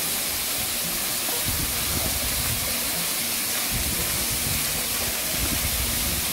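Manyava waterfall pouring into its pool at close range: a steady rushing hiss of falling water.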